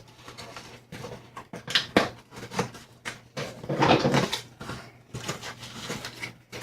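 Rustling and knocking of packaging and plastic coffee-maker parts being handled and pulled from a box, in irregular bursts with a longer, louder rustle about four seconds in.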